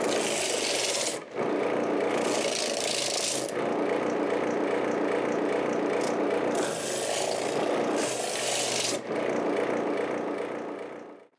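Bench disc sander running while a sandal's sole edge is pressed against the abrasive disc, giving a rasping hiss on each pass. There are about four grinding passes of a second or so, with the sander running between them. The sound dies away near the end.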